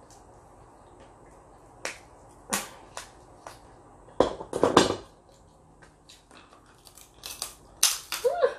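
Cooked snow crab leg shell being cracked and snapped apart by hand: a series of sharp, dry cracks, the loudest cluster about halfway through and more near the end.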